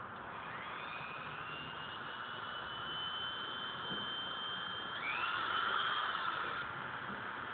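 Dremel rotary tool spinning up to a steady high-pitched whine, its bit held against the car's fender panel. About five seconds in the pitch dips and climbs back up.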